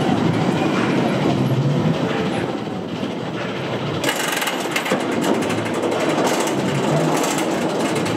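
Untamed's Rocky Mountain Construction hybrid roller coaster train rolling along its track, then, from about four seconds in, climbing the lift hill with a dense, rapid clatter of lift-hill clicking.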